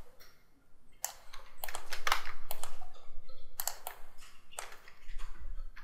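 Computer keyboard keys and mouse buttons clicking, in three quick runs of taps.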